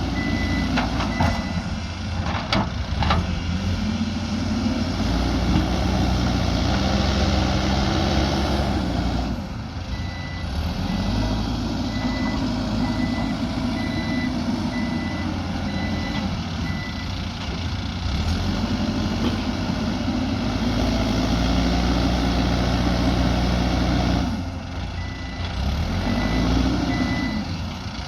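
Mahindra backhoe loader's diesel engine working, its pitch rising and falling over and over as it is worked under load, with the reversing alarm beeping in three stretches while the machine backs up. A few sharp clanks sound near the start.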